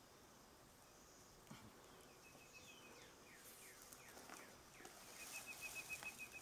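Near silence: faint outdoor ambience with bird chirps, including a rapid trill heard twice. Light rustling of dry leaves and the fabric carrier builds over the last couple of seconds as the cat is handled into it.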